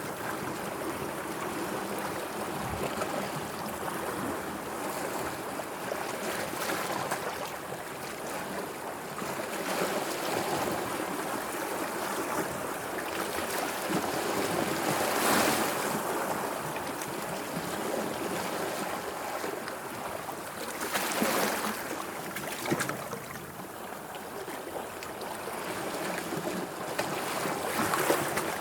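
Sea water washing and lapping in a steady wash, with a louder splash about fifteen seconds in and another around twenty-one seconds.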